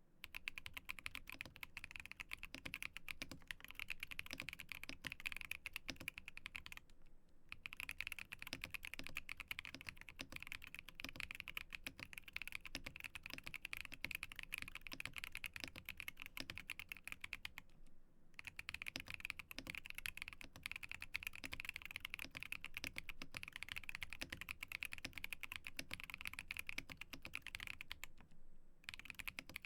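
Fast continuous typing on a mechanical keyboard with factory-lubed Epomaker Wisteria tactile switches, dense keystroke clacks with three brief pauses.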